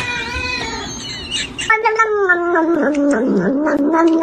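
A cat meowing, then a long, drawn-out wavering yowl that starts just under two seconds in and dips in pitch partway through.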